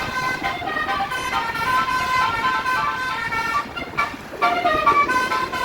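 Basuri 'telolet' multi-tone bus horn playing a quick melody, the notes stepping up and down several times a second, with a brief break about four seconds in.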